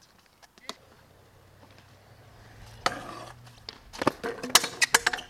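Stunt scooter rolling on skatepark concrete with a low, slowly growing rumble, then a hard hit about three seconds in and a quick run of sharp clattering knocks near the end as the scooter lands and hits the ground.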